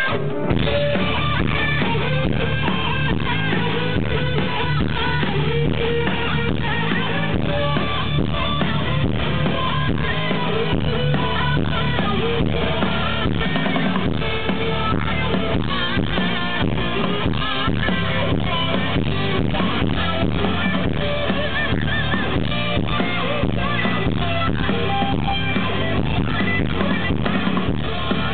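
Live rock band playing: distorted electric guitars over a drum kit keeping a steady beat, heard loud from within the audience.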